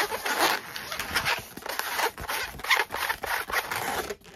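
Inflated white latex modelling balloons squeaking and rubbing against each other as they are twisted and squeezed together by hand, in a run of short, irregular squeaks.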